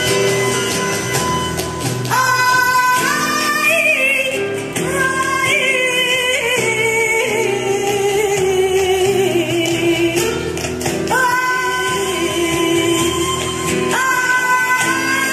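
Music with a singer: steady instrumental chords, then a wavering sung melody that comes in about two seconds in and slowly drifts downward.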